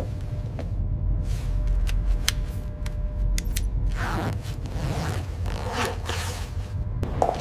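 A tactical vest being fastened and adjusted: a run of sharp clicks from buckles and clips, then longer rasping, zip-like swishes of straps and fabric. A low steady hum lies under it.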